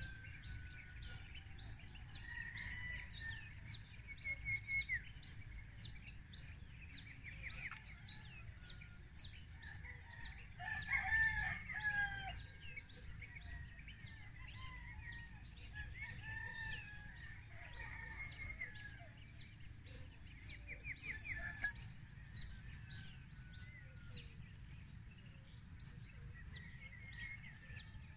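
A rooster crows once, about ten seconds in, the loudest sound here. Beneath it a high trilled bird call repeats about once a second, with other scattered birdsong over a low steady background rumble.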